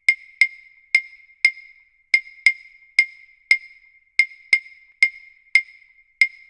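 Background music: a lone high, hollow wood-block click repeating about twice a second in an uneven rhythm, each stroke dying away quickly.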